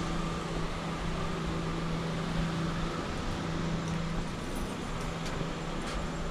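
Steady outdoor background noise with a low, even hum running under it, and a couple of faint clicks near the end.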